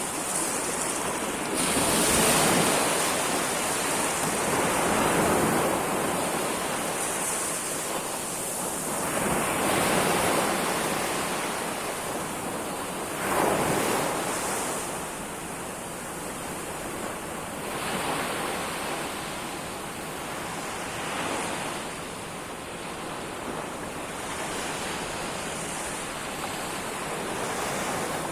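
Ocean waves breaking and washing up the shore, a steady rush of surf that swells with each wave every few seconds, the biggest surges about 2, 10 and 13 seconds in.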